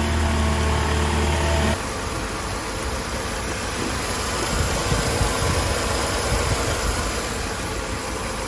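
1999 Mercedes-Benz C230 Kompressor's supercharged four-cylinder engine idling with the hood open, a steady hum. About two seconds in the steady hum gives way abruptly to a rougher, noisier running sound.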